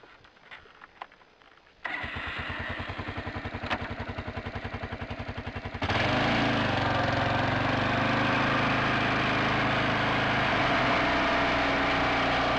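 ATV engine starts about two seconds in and idles with an even pulse, then about six seconds in it revs up and runs steadily and louder as the four-wheeler drives off across the pasture.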